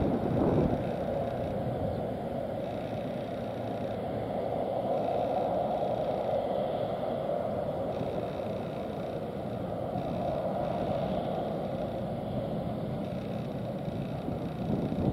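Twin turbofan engines of a J-AIR Embraer regional jet running at low power as it taxis on the wet runway, a steady rushing jet noise. There is a brief low rumble near the start.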